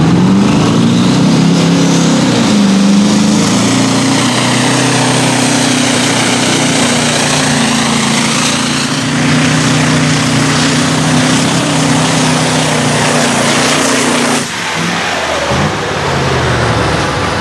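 Diesel engine of an Iveco pulling truck at full throttle, dragging a weight sled and running loud and steady at high revs. It drops off sharply about fourteen seconds in, then runs on at lower revs.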